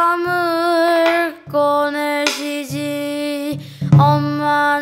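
A high voice sings a line of a pansori-style song in about four long-held phrases, with a low, steady instrumental backing underneath.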